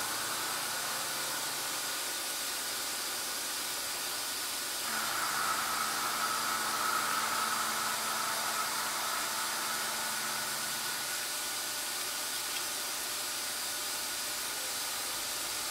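Steady background hiss, with a faint whine that comes in about five seconds in and fades out around eleven seconds.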